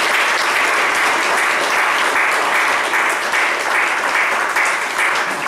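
A roomful of people applauding, a steady dense clatter of many hands clapping.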